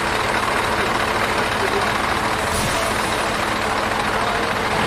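Scania heavy truck's diesel engine running steadily during a tow recovery.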